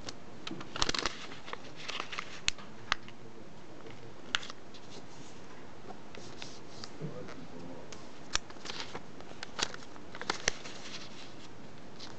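A small sheet of origami paper being folded and creased by hand on a tabletop: scattered crisp crackles, rustles and sharp clicks of the paper, in a few clusters, over a steady hiss.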